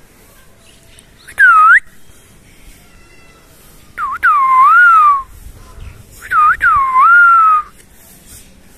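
Three loud, clean whistles: a short swooping one, then two longer ones that dip and rise before gliding down.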